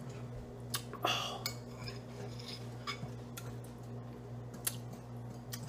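A metal spoon scraping and clicking against a bowl in a handful of short, scattered clinks while dessert is scooped out and eaten, over a steady low hum.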